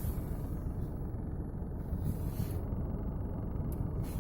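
Rattle from under the dashboard of a 2012 Toyota Camry with the 2.5-litre four-cylinder idling, heard inside the cabin with the automatic in D and the brake held. It is a steady low buzzing rattle that shows only in D.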